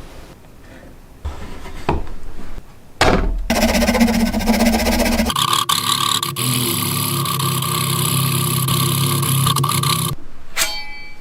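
An electric power tool's motor running for several seconds: it starts with a jolt about three seconds in, settles into a steady hum about five seconds in, and stops about ten seconds in.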